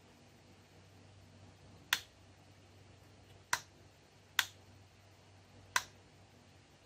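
Four sharp clicks, a second or so apart, as a two-tipped soldering gun is touched to a home-built TIP41 amplifier's wiring, with a faint steady low hum beneath.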